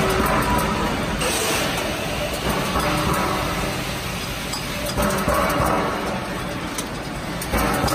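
Steel drum line with roller conveyors and a pneumatic capping arm running: a steady machinery din with light metallic clinks, swelling roughly every two and a half seconds.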